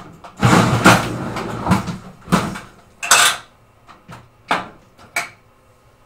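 Pinball playfield being slid forward and raised in its cabinet: a couple of seconds of scraping and clunking, a loud knock about three seconds in, then a few lighter clicks.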